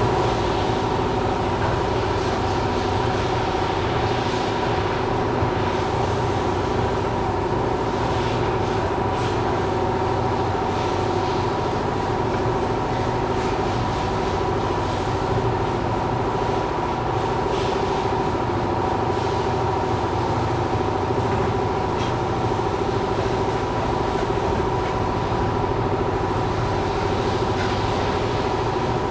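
Steady machine hum made of several unchanging tones, with faint scattered scratchy ticks above it.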